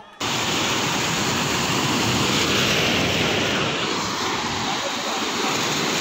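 Rushing water of a waterfall, a loud steady roar that cuts in suddenly just after the start.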